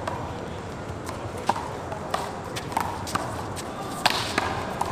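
Handball rally: a rubber handball smacking sharply off hands, the wall and the ground, six or so hits at irregular intervals about half a second apart, over steady outdoor background noise.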